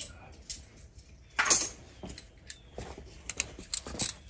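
Metal hand tools clinking and rattling as they are picked up and handled: a string of irregular clinks, with one longer clatter about a second and a half in.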